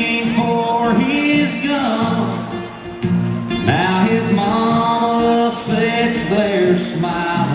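A man singing a slow country song while strumming his acoustic guitar, heard through an arena sound system, with a short break between sung lines about three seconds in.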